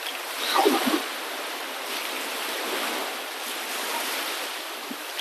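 Waves washing on a shore as a steady wash of water, with one louder splash of breaking water about half a second in.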